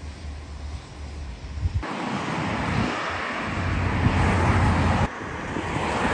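Road traffic: cars going past on a busy road, with wind on the microphone. The sound jumps abruptly louder and fuller a little under two seconds in.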